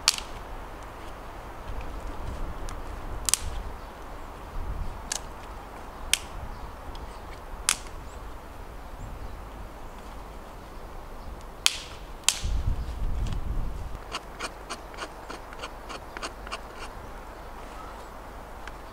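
Sharp cracks and knocks of dry wood being split and broken for fire kindling: single cracks every second or two, then a quicker run of lighter ticks in the second half.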